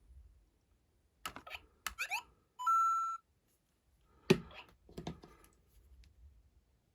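Lego Super Mario interactive figures playing electronic sound effects: quick rising chirps, then a short held beep about three seconds in. Clicks and knocks of plastic Lego pieces come before and after the beep.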